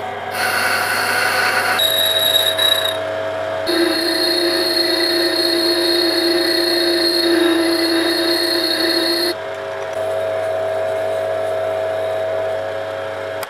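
Metal lathe running with a cutting tool working a two-stroke cylinder liner, a steady whine that shifts abruptly a few times; near the end abrasive cloth is held against the spinning liner. The sound cuts off suddenly at the end.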